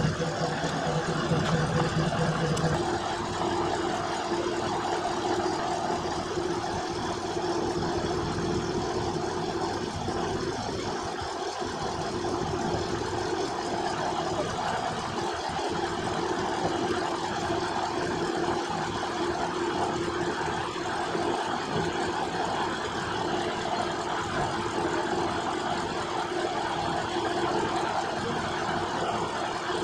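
Diesel engine of the small DC251 diesel locomotive idling with a steady hum; a lower tone drops away about three seconds in.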